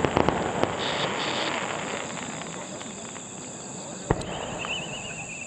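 Fireworks crackle and die away in the first second. A single sharp bang comes about four seconds in, followed by a wavering whistle from a rising firework shell that slowly falls in pitch. Crickets chirp steadily throughout.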